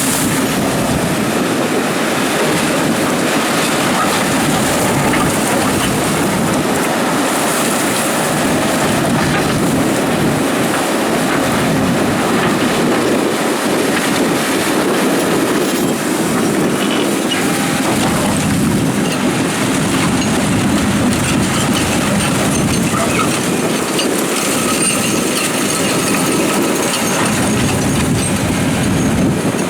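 Doosan DX300 crawler excavator digging gravel: a loud, steady din of the diesel engine and hydraulics working, with gravel grinding in the bucket and scattered knocks.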